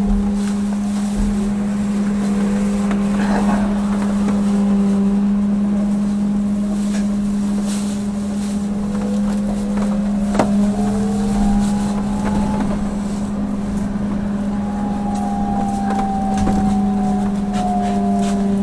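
Trolleybus running, heard from inside: a steady deep hum from its electrical equipment, with the electric traction motor's whine rising in pitch about halfway through as it picks up speed and falling again near the end as it slows. A few light clicks and rattles.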